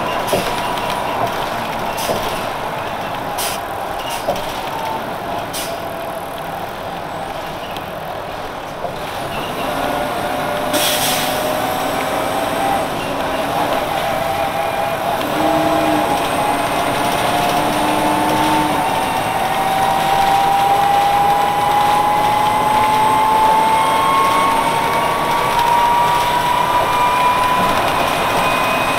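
1999 Nova Bus RTS-06 transit bus with its Detroit Diesel Series 50 engine and ZF automatic transmission. It runs quieter for several seconds, then gives a short burst of air-brake hiss about eleven seconds in. It then pulls away, with a whine that rises steadily in pitch and grows louder as it gathers speed.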